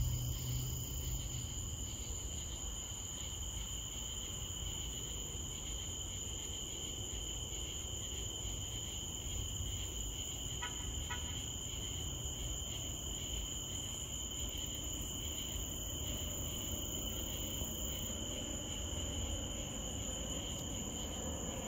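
Night insect chorus: a steady, high-pitched trilling, in two unchanging tones, over a steady low rumble.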